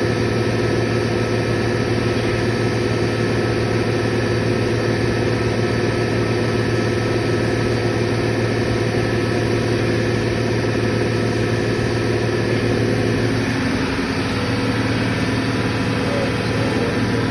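Open-drive compressor and its motor running steadily with a loud, even machine hum; about three-quarters of the way through the tone shifts as some of the low humming fades.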